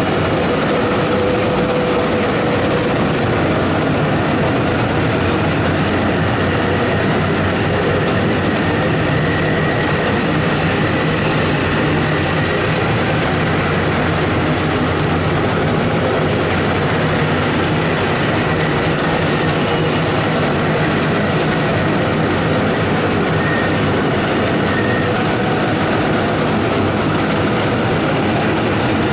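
Rice combine harvester running steadily, a continuous engine drone with a dense mechanical rattle.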